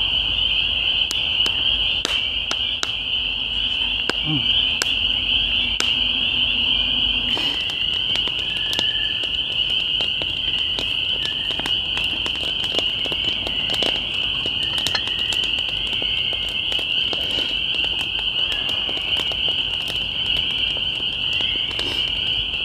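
Dense chorus of spring peepers calling, a steady high-pitched trilling without a break, with scattered sharp pops and clicks from a crackling campfire.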